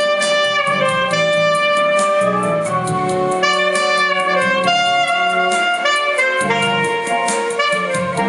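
Saxophone playing a jazz melody of held notes, with a quieter accompaniment underneath in the low register.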